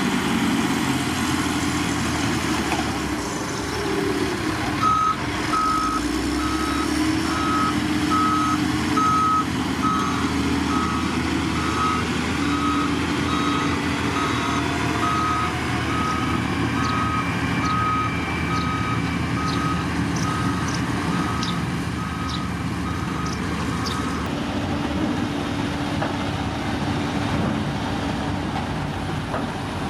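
Heavy road-construction machine's diesel engine running while its reversing alarm beeps steadily, a little more than once a second, for about twenty seconds.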